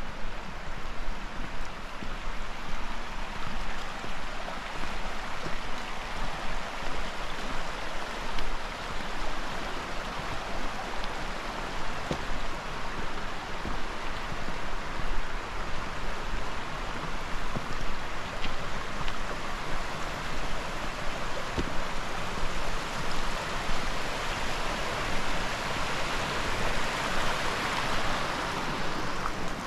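Creek water rushing over rocks, a steady, even wash that grows a little louder near the end.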